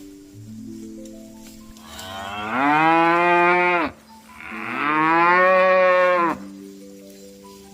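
A cow mooing twice: two long, loud calls, each rising in pitch at the start and then held, with a short break between them. A quiet melody of stepped notes plays underneath.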